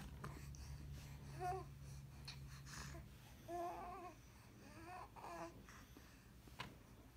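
A baby cooing and babbling softly in a few short pitched sounds, about a second and a half in, then twice more in the middle. A low hum stops about three seconds in, and a single sharp click comes near the end.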